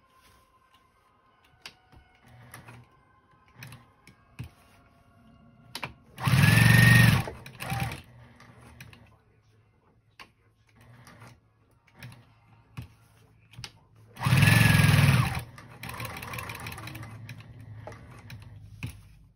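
Electric sewing machine stitching through a layered denim quilt square in two short, loud bursts of about a second each, about six and fourteen seconds in, then a softer run of a few seconds near the end. Small clicks of fabric handling come in between.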